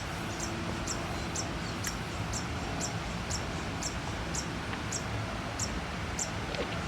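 A small animal's high, short chirp repeating evenly about twice a second, over a steady background hiss.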